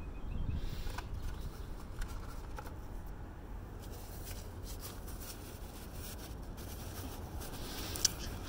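Faint handling sounds: light rustling and clicks as a metal multitool and paper shop towels are handled and set down on a plastic engine cover, with one sharper click near the end, over a steady low rumble.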